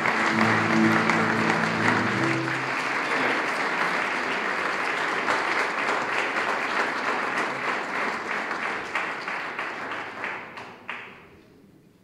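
Audience applauding, with the closing held notes of the song ringing under it for the first couple of seconds. The clapping thins out and dies away near the end.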